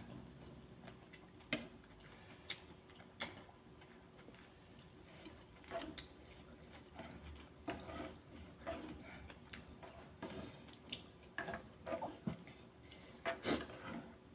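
A person eating spicy suki hot pot noodles close to the microphone: irregular wet mouth sounds and short clicks, the loudest a little before the end.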